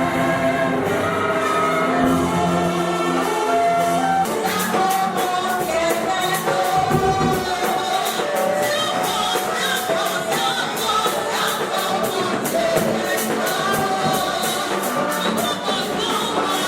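Music with singing; about four seconds in, a steady percussion beat joins in.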